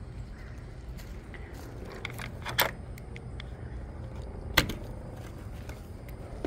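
Metal hasp and latch on a wooden shed door clicking and clinking as it is worked open: two sharp clicks, a little over two and a half seconds in and again about two seconds later, among lighter ticks, over a low steady rumble.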